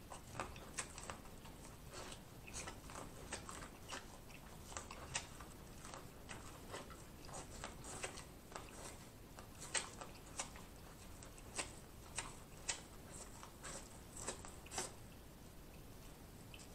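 Biting and chewing corn on the cob: short, crisp crunches of kernels being bitten off the cob and wet mouth clicks, irregular, about one or two a second.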